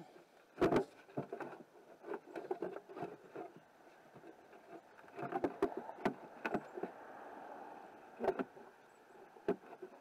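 Irregular plastic clicks, knocks and scrapes of a 2009 Dodge Grand Caravan's tail light housing being handled and shifted against the van's body as its locating pins are lined up. A short stretch of steadier rubbing comes about two-thirds of the way through.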